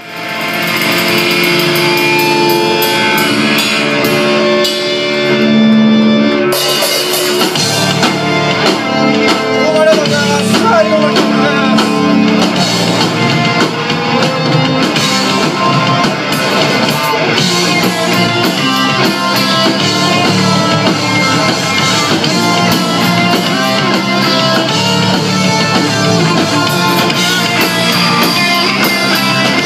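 Live rock band playing loud: electric guitars, electric bass and drum kit. It opens on held chords with cymbal crashes, and about seven seconds in the full band comes in driving.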